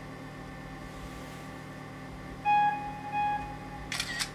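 Mac OS X Lion's account-picture snapshot countdown played through a MacBook Pro's speakers: two electronic beeps, then a camera-shutter click about four seconds in as the photo is taken.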